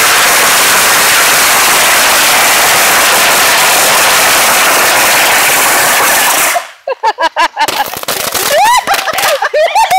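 A long string of firecrackers tied to an RC car going off in one rapid, unbroken crackle of bangs, cutting off abruptly after about six and a half seconds. After that come scattered pops and several short whistles that swoop up and down in pitch.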